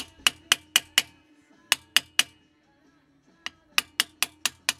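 A series of sharp clicks, about four a second: five, a pause, three, a longer pause, then a longer run. Each click has a short ringing tone.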